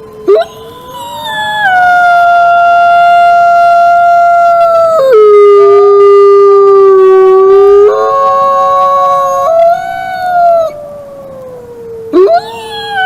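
Wolves howling together: long, drawn-out howls overlapping at different pitches, one dropping to a low steady note for about three seconds before the voices step back up. A fresh howl swoops up sharply near the end.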